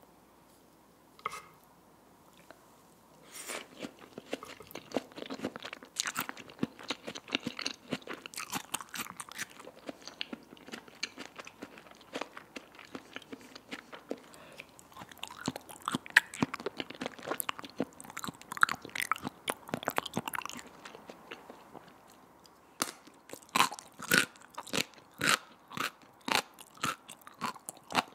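Close-miked chewing and crunching of food, wet mouth sounds and bites in dense clusters. After a short lull near the end they turn into louder, separate crunches about twice a second.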